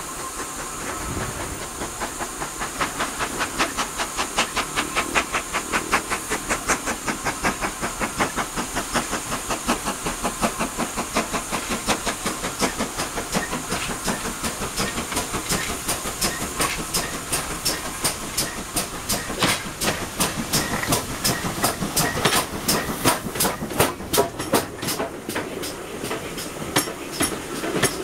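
Steam locomotive 5239 'Goliath', a GWR 2-8-0 tank engine, drawing its train in and coming alongside. It gives a steady steam hiss over a rapid, even beat that grows louder and more uneven as it draws close.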